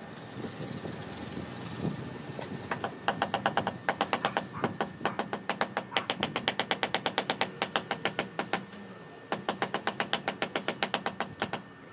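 A ceramic floor tile being tapped down into its mortar bed: rapid, even taps at about five a second, in two long runs with a short break about nine seconds in.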